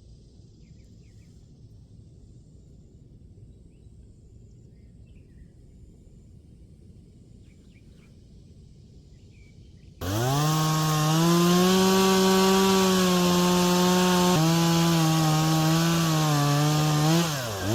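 After about ten seconds of faint outdoor background, a chainsaw comes in suddenly and runs at high revs, its pitch sagging briefly twice as it takes load, as when cutting into the maple.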